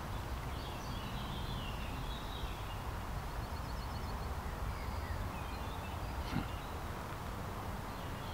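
Outdoor ambience: a steady low rumble with faint bird calls and chirps above it, including a quick run of short notes a little past three seconds in.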